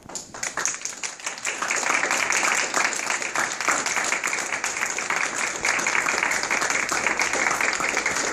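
Audience applauding, swelling over the first couple of seconds and then holding steady.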